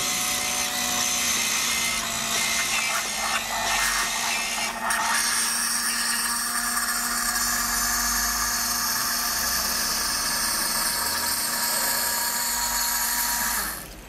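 Coffee vending machine running a drink cycle: its powder mixer motor whirs steadily with a constant hum. The sound changes character about five seconds in and cuts off shortly before the end.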